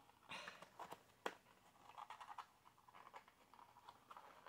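Faint rustling and scraping of fingers working at a small paperboard cosmetics box to pry it open and free what is inside, with a sharp tick about a second in.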